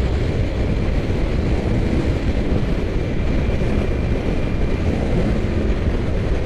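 Steady rush of wind over the microphone at motorway speed, with the drone of an Aprilia RSV4 RR's V4 engine running on light throttle underneath, the bike still being run in.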